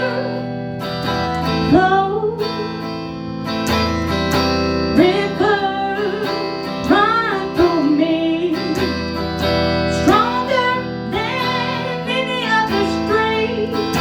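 A song: strummed acoustic guitar with a singing voice over it.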